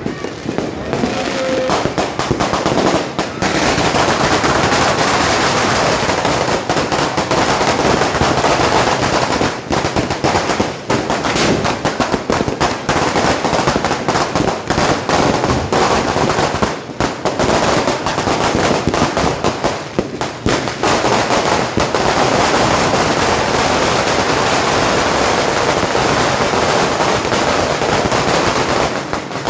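Fireworks and firecrackers going off in a dense, continuous crackle of rapid pops and bangs, with a few brief lulls.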